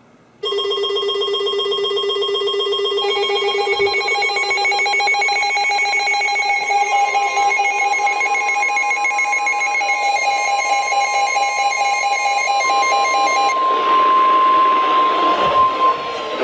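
Several electronic emergency alert tones sounding together. A loud steady tone starts suddenly about half a second in, and more steady tones join one after another, including a single high steady tone from about seven seconds in. A rush of noise comes up near the end.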